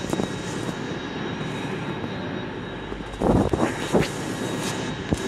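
Voyager diesel multiple unit drawing slowly into the platform, its underfloor diesel engines running with a steady drone. A few loud thumps come about three to four seconds in.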